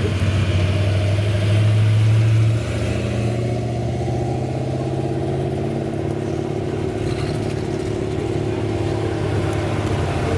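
Car engine running at low revs with a deep, steady rumble, a little louder for the first two and a half seconds and then dropping slightly.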